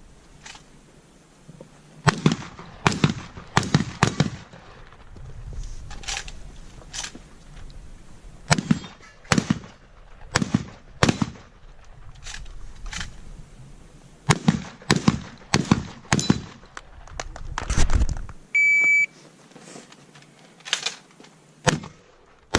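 Shotgun fired over and over in fast strings of shots, each a sharp crack with a short echo. A short electronic beep about 19 s in, typical of a shot timer's start signal.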